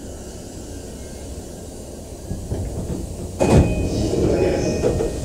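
E233-series commuter train car coming to a stop with a steady low rumble, then a sudden loud thump about three and a half seconds in as the sliding doors open, followed by continuing door and platform noise.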